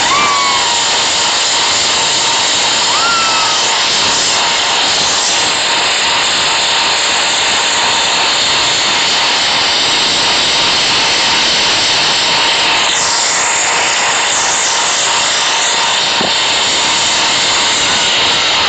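Washing machine running, a loud steady whooshing noise with a few short chirping squeaks.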